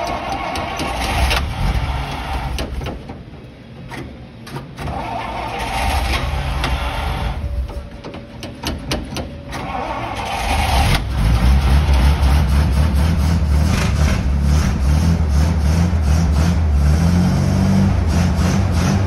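Long-stored 1949 Dodge truck flathead six being cranked by its starter in several short tries with pauses between, then catching a little past halfway and running on.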